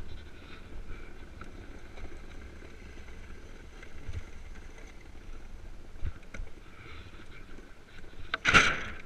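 An iceboard running fast over lake ice: a steady rumbling hiss of the runners on the ice with wind buffeting the microphone, a few light knocks, and a loud rushing burst about eight and a half seconds in.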